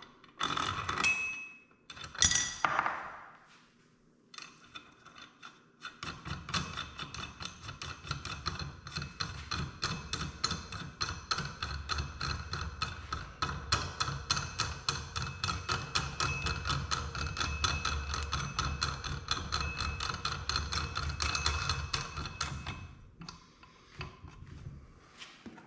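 A few metal clinks of tools being handled, then a ratchet wrench clicking rapidly and evenly over a low rumble from about six seconds in until near the end.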